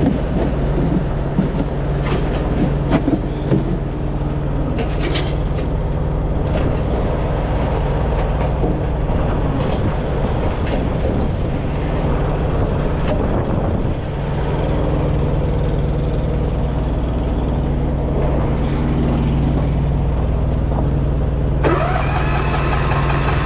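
Truck diesel engine idling steadily, with scattered knocks. Near the end a louder rushing noise with a rising whine sets in over it.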